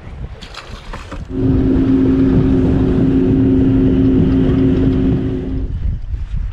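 A small fish splashes into the water just after the start; then a motor hums steadily at one pitch for about four seconds, cutting in suddenly and fading out near the end.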